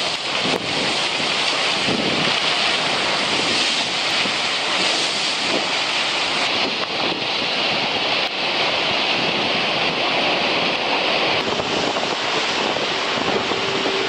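Wind and rushing water aboard an ocean-racing yacht sailing hard through rough seas: a steady, loud hiss of spray and wake, with wind noise on the microphone.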